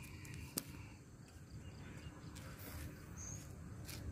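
Faint outdoor background of insects chirring, with a few sharp clicks (the loudest about half a second in) and a short high chirp about three seconds in.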